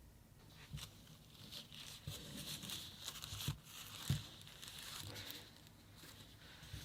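Packaging being handled during an unboxing: crinkling and rustling with a few light knocks, the sharpest about four seconds in.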